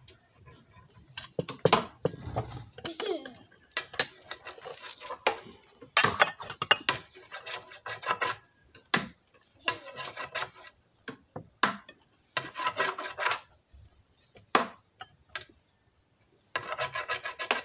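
Dishes and food being handled while cucumber slices are set around a plate of rice: rubbing and scraping sounds in several bursts of about a second each, with sharp clicks between them.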